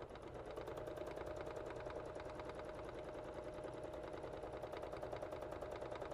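Elna domestic sewing machine stitching steadily at speed during free-motion quilting, with the feed dogs down: a steady motor hum under a rapid, even needle clatter.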